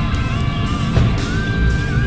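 Background rock music led by a guitar, with a long held note that wavers near the end.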